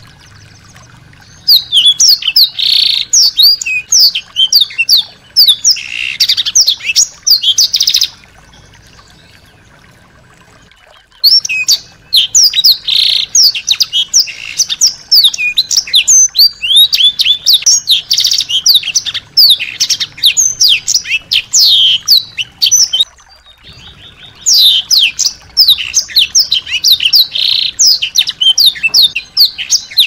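A small songbird singing in three long bouts of rapid, sharply falling high notes and trills, with pauses of a few seconds between bouts.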